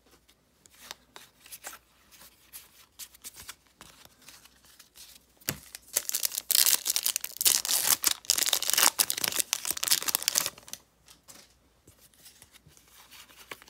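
A trading card pack wrapper being torn open and crinkled, loudest in a burst of crackling from about six to ten and a half seconds in, with light card handling and rustling before and after.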